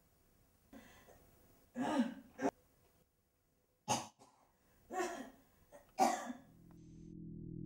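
A man coughing repeatedly, about half a dozen separate coughs with pauses between them. Near the end a low droning music note fades in and grows louder.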